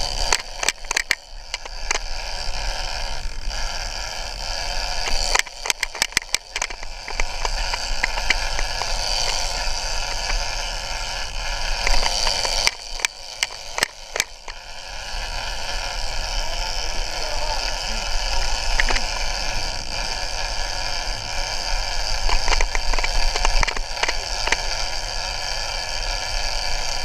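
A sportfishing boat's engine and the water around it run steadily, with a low hum underneath. Clusters of quick clicks come from the rod and reel being worked as a yellowfin tuna is cranked in.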